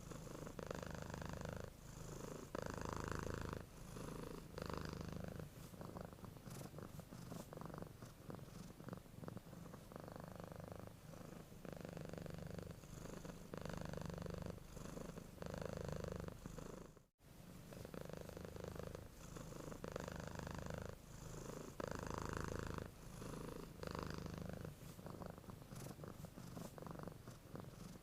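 A sleeping domestic cat purring steadily, the purr swelling and easing with each breath in and out. The sound cuts out for an instant about 17 seconds in.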